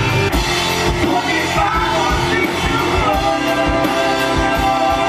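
Live band performing an upbeat pop-rock song, with singing over a steady drum beat.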